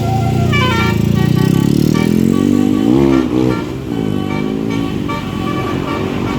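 Tour bus sounding its musical 'telolet' basuri air horn: a quick run of falling notes about half a second in, then a rising, wavering tone around three seconds in, over the bus's running engine.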